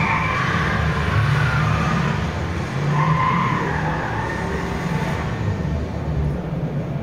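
A television's built-in speakers playing back a soundtrack of a steady low rumble with swishing, car-like passes, the brighter swishes fading out about five seconds in.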